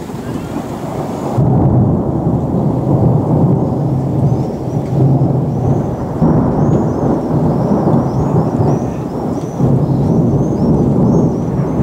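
Thunder rumbling in a storm, growing sharply louder about a second in and then rolling on, swelling and easing, with rain.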